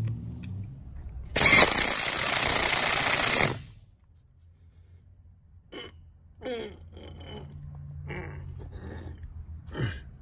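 A power tool runs hard for about two seconds, driving a bolt into the differential housing that binds and stops short because it is cross-threaded or misaligned. This is followed by a few lighter clicks and knocks from an 18 mm ratcheting wrench on the bolt.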